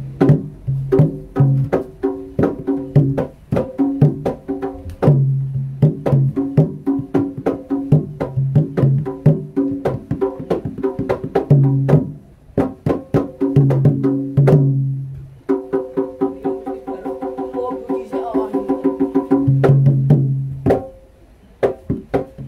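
Javanese jaranan dance music: gamelan-style pitched metal percussion and drums struck in a fast, driving rhythm that grows busier in the second half, then thins out near the end.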